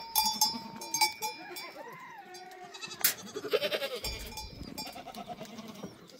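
Goats bleating among a herd, with neck bells clanking and ringing.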